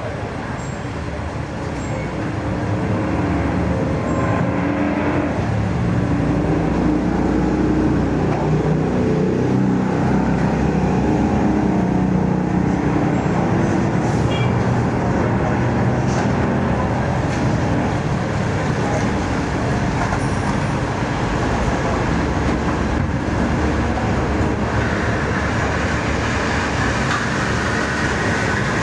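Motor vehicle running with road and traffic noise, building up over the first few seconds.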